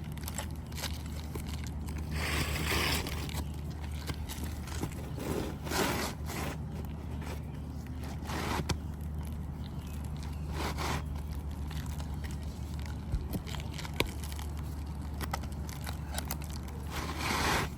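Roof shingles being pried up and worked loose by hand: short scraping rustles every few seconds, with scattered light clicks and taps, over a steady low hum.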